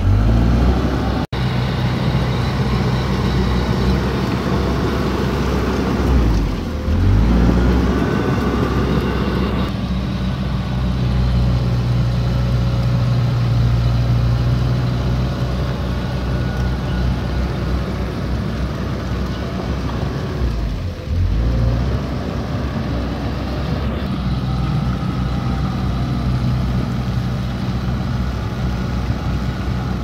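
Komatsu D31P crawler bulldozer's diesel engine running loud and steady under load. Its note drops and then picks up again twice, about six seconds in and about twenty-one seconds in.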